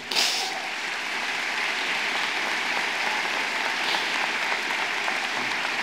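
Large audience applauding, breaking out at once and holding steady in encouragement while the speaker is overcome with emotion.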